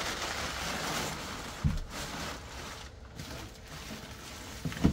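Crumpled packing paper rustling and crinkling as it is handled and pulled out of a cardboard box, busiest in the first second or so, with a short low sound about a second and a half in.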